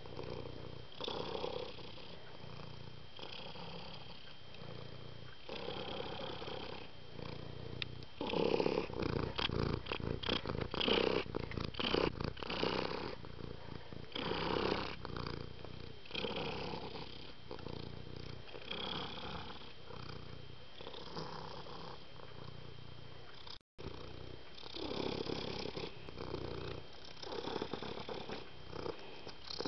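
Domestic cat purring in slow, breath-by-breath waves, with a run of quick clicks partway through; the sound cuts out for an instant near the end.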